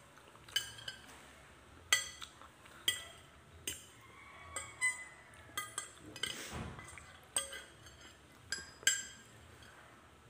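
Metal fork and spoon clinking on a plate: about a dozen sharp clinks, each with a short ring, at irregular intervals as noodles are scooped up.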